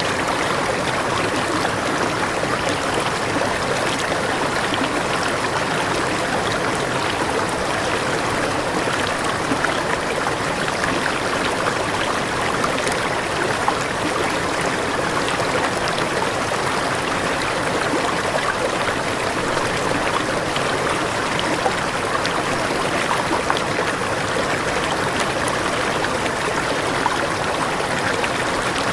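Waterfall: a steady rush of falling water, even throughout, with small splashes.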